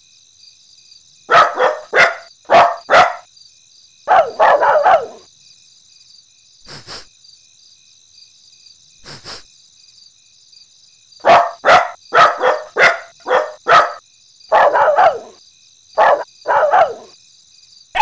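Cartoon dogs barking and yipping in short sharp yelps. There is a quick run of four about a second in and a cluster around five seconds. Single yelps come near seven and nine seconds, then a longer run of about six and a few more in the second half.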